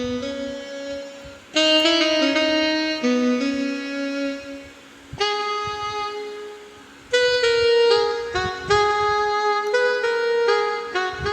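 Casio CT-X9000 arranger keyboard playing a melody in a saxophone-like voice, in three phrases that come in about a second and a half, five and seven seconds in.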